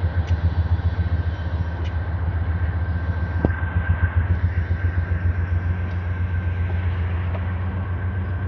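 Freight train's diesel locomotives rumbling past with a steady, low pulsing throb.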